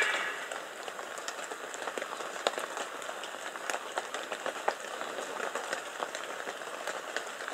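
Light rain pattering: a steady hiss with irregular drops ticking. A red deer stag's rutting roar dies away at the very start.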